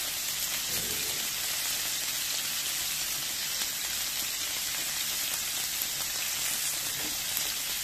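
Rump steak, asparagus and mushrooms sizzling steadily on a hot ridged grill plate, a continuous even hiss.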